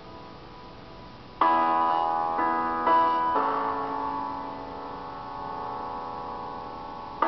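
Slow instrumental music: a quiet held chord, then from about a second and a half in a few struck keyboard chords in quick succession, the last one left ringing and slowly fading.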